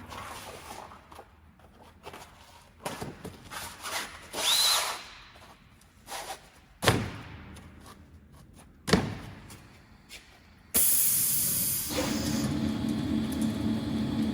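Sanding belt slitting machine: scattered knocks and clatter of handling, with two sharp knocks. Then, about three-quarters of the way in, a sudden hiss, and the machine starts running with a steady humming drone.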